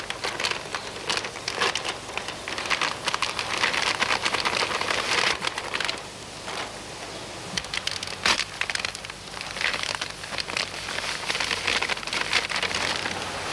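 Dry fishing groundbait poured from plastic packets into a plastic bucket: a crackling hiss of falling crumbs with the packets crinkling, easing off briefly about six seconds in.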